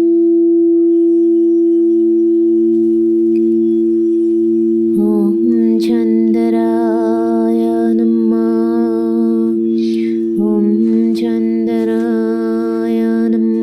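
A steady held drone, with a voice singing a wordless, wavering melody over it from about five seconds in, breaking off briefly around ten seconds.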